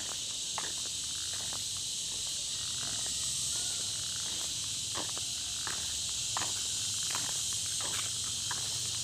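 A steady, high-pitched insect chorus from the roadside vegetation, with the walker's footsteps on the paved road at about one to one and a half steps a second.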